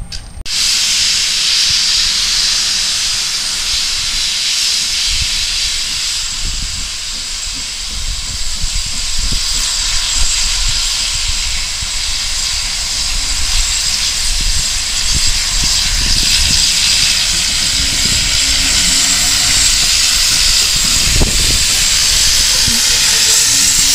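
Small saddle tank steam locomotive letting off steam: a loud, steady hiss that starts suddenly about half a second in and carries on, with a low rumble underneath.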